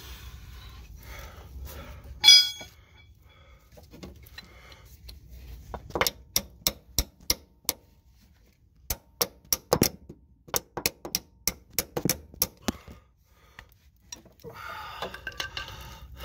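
A metal tool tapping against an old transmission axle seal to work it loose from the case: one loud ringing metal clink about two seconds in, then two runs of quick, sharp metal taps, about four a second, beginning about six seconds in.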